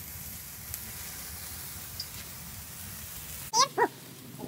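Handheld sparkler burning close by with a steady fizzing hiss. It cuts off abruptly near the end, and a voice gives two short loud cries.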